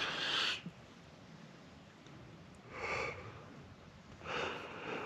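A man's breathy exhalations, then a long breathy yawn near the end.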